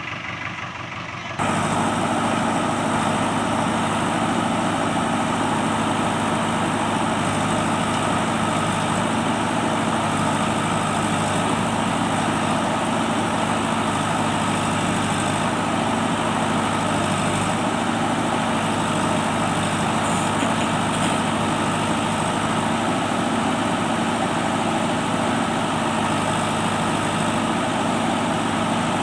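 Diesel engine of a backhoe loader running steadily with an even hum. It gets abruptly louder about a second and a half in, then holds unchanged.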